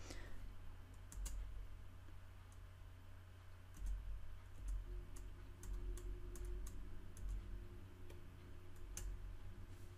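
Faint, irregular clicking at a computer, more than a dozen clicks at uneven intervals, over a steady low hum with occasional low rumbles.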